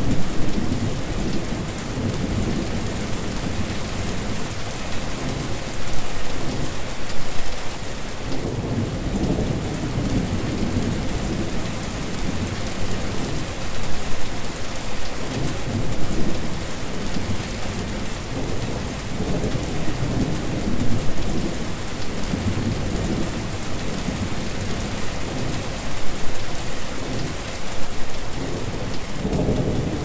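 Steady rain falling on a wet surface, a continuous hiss, with low rumbling swells that rise and fade every few seconds.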